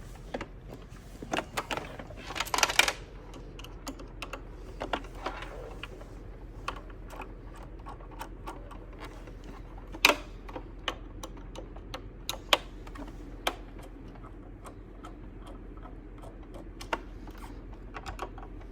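Screwdriver backing screws out of a sewing machine's plastic cover: irregular small clicks and scrapes, with a burst of scraping about two seconds in and sharper clicks around ten and twelve seconds, over a faint steady low hum.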